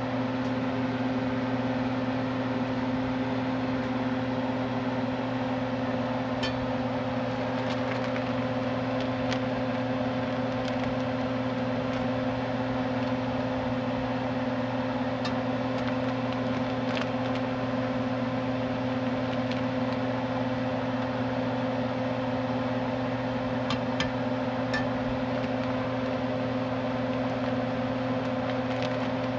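Steady hum of a kitchen exhaust fan running, with a constant low drone and even hiss, and a few faint clicks scattered through.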